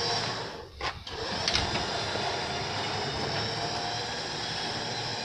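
9,000-lb electric winch running under load, hauling a drag car up aluminium ramps: a steady mechanical drone that dips briefly about a second in, with a click soon after.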